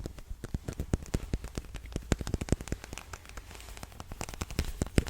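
Rapid, irregular tapping and clicking of small art supplies being handled close to the microphone.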